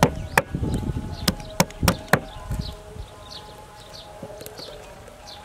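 Cleaver chopping on a thick wooden chopping board: a run of sharp chops in the first couple of seconds, then only a few light knocks. A steady insect buzz runs underneath.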